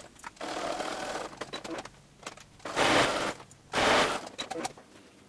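Electric sewing machine stitching in short runs, starting and stopping three times with brief pauses between, as a seam is sewn through layered fabric.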